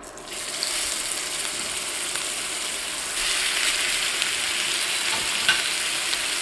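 Seasoned strip steaks sizzling as they are laid into hot clarified butter in a cast iron skillet. The sizzle starts sharply as the first steak goes in and grows louder about three seconds later as the second joins it, with a few faint clicks near the end.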